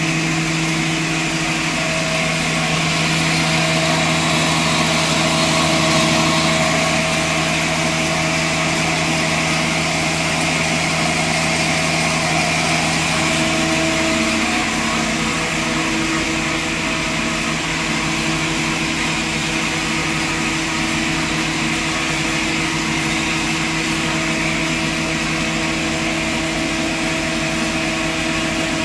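Electric-motor-driven cyclone atta chakki (flour mill) running steadily while grinding grain into flour: a constant machine hum under an even rushing noise as the flour is blown out through the outlet pipe.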